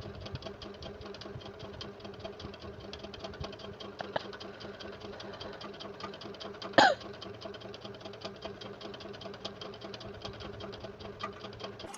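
A woman sneezes once, sharply, about seven seconds in; the sneeze is brought on by tickling inside her nose. Behind it runs a steady machine hum with fast, even ticking.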